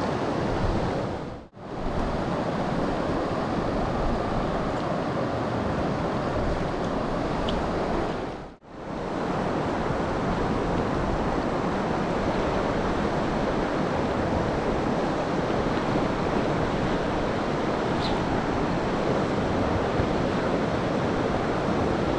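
Steady rush of river water flowing over rocks. It briefly cuts out to silence twice, about a second and a half in and again about eight and a half seconds in.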